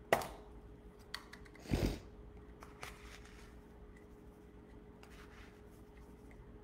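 Kitchen items being handled while measuring out chia seeds: a sharp click just after the start and a thud a little under two seconds in, then faint rustling and light ticks over a steady low hum.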